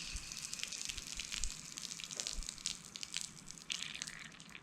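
Water dripping and trickling: scattered small drips over a faint hiss.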